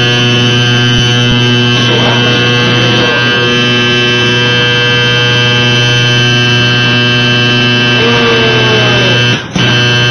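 Ship's whistle sounding one long, loud, steady low blast. It breaks off about nine and a half seconds in, sounds again for a moment, and stops just before the end.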